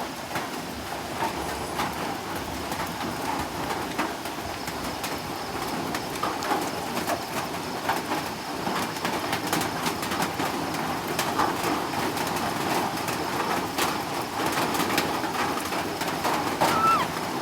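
Steady rain falling, with many scattered drop clicks. A short rising bird call comes near the end.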